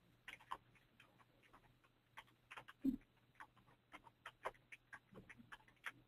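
Faint, irregular clicks and taps, a few a second at uneven spacing, over a steady low hum.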